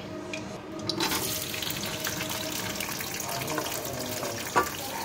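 Chopped onions frying in hot oil in a kadhai: a steady sizzle starts suddenly about a second in as they hit the oil and goes on while a metal spatula stirs them, with one sharp clink near the end.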